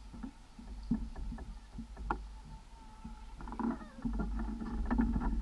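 Wind rumbling on the microphone, stronger in the last second and a half, with small irregular knocks and taps.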